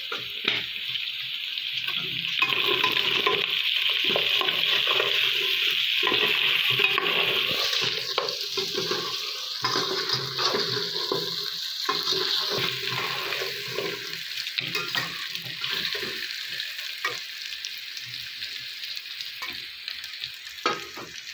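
Mutton pieces frying in oil with browned onions in an aluminium pot, sizzling steadily, while a slotted metal spatula stirs and scrapes the pot to mix in ground coriander. The sizzle is loudest in the first half and eases toward the end.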